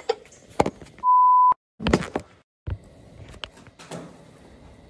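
A steady 1 kHz beep tone about half a second long, set between stretches of dead silence: an edited-in censor bleep. Around it are short knocks and rustles from the phone being handled.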